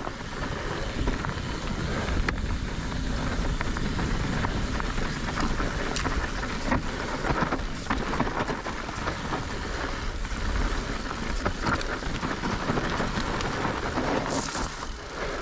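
Mountain bike rolling down a steep, loose dirt trail: tyres crunching and sliding over loose soil and stones, with frequent clicks and rattles from the bike and a steady low rumble of wind on the microphone.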